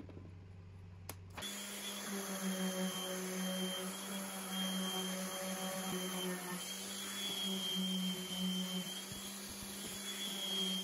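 Random orbit sander with a dust-extraction hose attached, sanding a small white oak piece: it starts about a second and a half in and runs steadily, a constant hum with a thin high whine over it.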